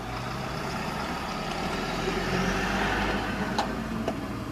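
Road traffic heard from inside a car: engine and tyre noise swell as vehicles pass close alongside, over a low steady engine hum. Two short clicks near the end.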